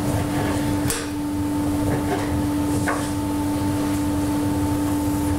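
Steady mechanical hum of kitchen ventilation, with a few light knocks of a knife blade on a plastic cutting board as pork tenderloin is sliced into medallions.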